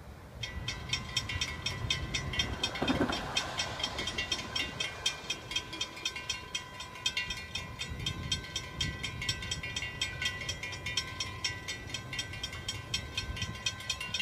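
Railroad grade-crossing warning bell ringing in rapid, evenly spaced strikes, starting about half a second in, over a low rumble: the crossing has been activated for an approaching train.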